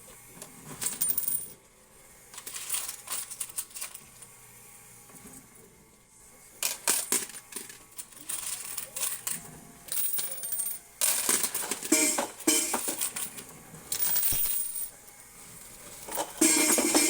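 Quarters dropping and clattering inside a coin pusher arcade machine: repeated clusters of metallic clinks, loudest near the end.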